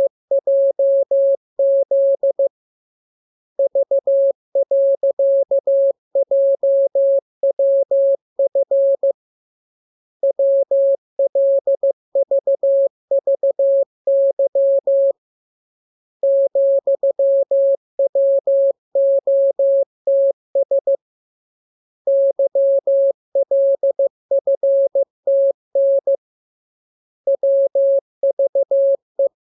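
Morse code practice tone: a single pure tone keyed on and off in dots and dashes, sent in groups of characters with pauses of about a second between groups.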